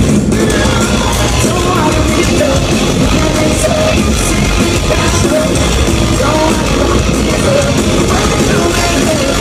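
Metalcore band playing live through a venue PA, with sung vocals over distorted guitars and drums, heard from within the crowd. The music is loud and unbroken.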